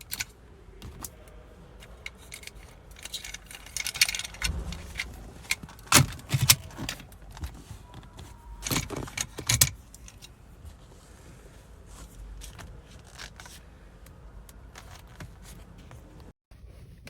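Metal jangling and clicking as a steering wheel lock and its keys are handled, with several loud sharp clacks near the middle.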